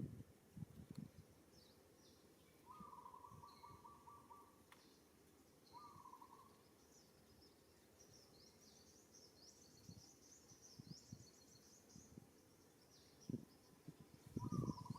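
Faint outdoor ambience with small birds chirping in quick high runs. A buzzy mid-pitched call comes twice, about three and six seconds in, and scattered low thumps and rustles come near the start and again near the end.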